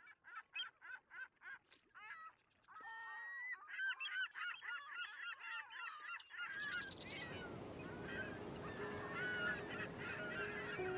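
A flock of birds calling in quick, repeated cries that thicken into a dense chorus. About six and a half seconds in, a steady rushing noise like surf or wind comes in, and the calls carry on over it.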